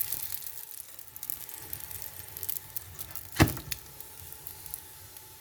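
Food frying in a hot pan: a steady, soft sizzle with fine crackles as it puffs up and browns. A single sharp knock sounds about three and a half seconds in.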